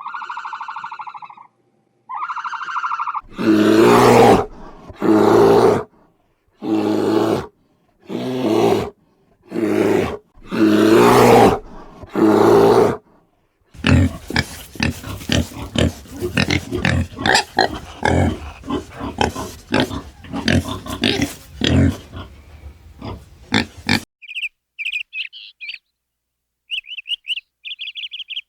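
Farm animal calls in sequence: two short pitched calls, then a run of loud calls about once a second, then about ten seconds of rapid grunting. High rapid chirping starts near the end.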